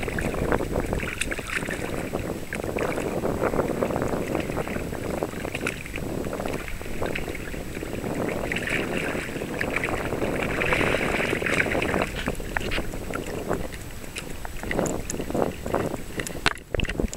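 Wind buffeting the microphone over choppy water slapping and lapping against a kayak hull: a steady rushing with irregular small splashes.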